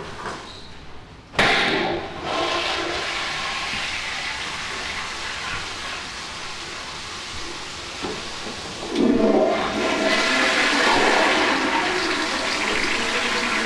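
Public restroom toilet flushing: a sudden loud rush of water about a second and a half in that keeps running, then surges again about nine seconds in. Played from a digitized vinyl record.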